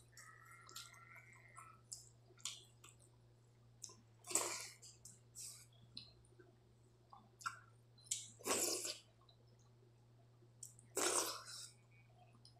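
Close-up sounds of eating watery rice by hand: fingers squishing rice in water in a steel plate and soft wet chewing clicks, with three louder wet slurping mouthfuls about four, eight and eleven seconds in. A faint steady low hum lies underneath.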